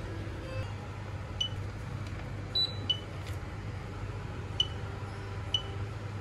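About five short electronic beeps from a self-checkout payment kiosk as its touchscreen is tapped, spaced irregularly over a steady low hum.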